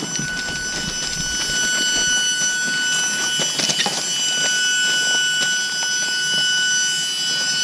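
Footsteps and loaded touring bicycles crunching and rattling over loose railway ballast, with many short crackles. Under it runs a steady, high-pitched whistling tone.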